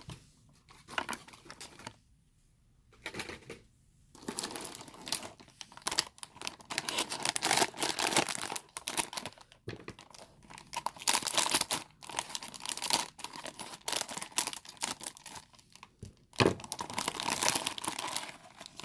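A blind-bag packet being torn open and its wrapper crinkled and crumpled by hand, in dense crackling bursts after a short pause.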